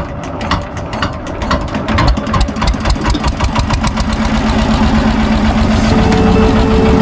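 Fishing boat's inboard engine speeding up: its firing knocks, about four a second at first, quicken and run together as it gets louder, and a steady hum joins in near the end.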